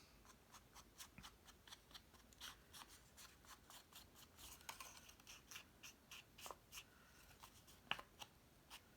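Faint, quick scratchy strokes of an ink blending brush being worked over cardstock, several a second, with one sharper tick near the end.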